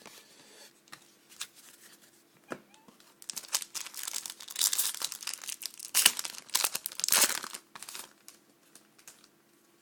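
A trading card pack's wrapper being torn open and crinkled, a run of sharp crackling and tearing about three seconds in that dies away near the end.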